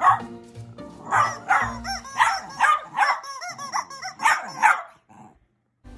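A dog barking repeatedly, about eight short barks over background music, stopping suddenly near the end.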